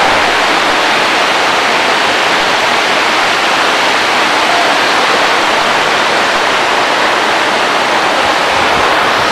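Steady, loud rushing noise with no breaks or rhythm.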